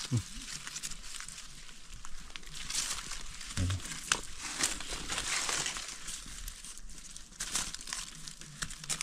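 Irregular rustling and crinkling with many small sharp clicks and snaps, from hands and feet working through dry forest litter while wild mushrooms are picked. A sharper snap comes about four seconds in.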